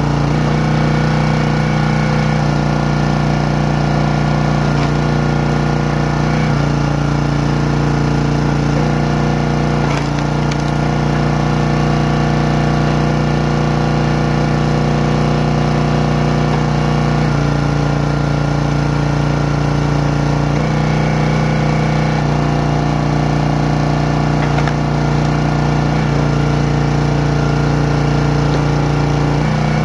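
Small gas engine of a 27-ton Champion hydraulic log splitter running steadily. Its note shifts every few seconds as the ram splits firewood rounds and returns.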